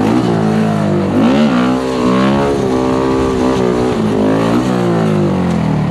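Honda Grom minibike engine under way, revving up and dropping back several times as the rider accelerates and changes gear.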